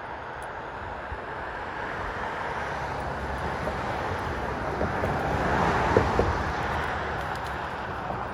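A vehicle passing, its noise growing louder to a peak about six seconds in and then fading.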